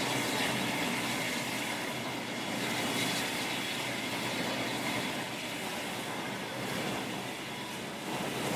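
Steam locomotive LMS Stanier Jubilee 5XP 45596 Bahamas on the turntable, giving a steady hiss with a low rumble underneath.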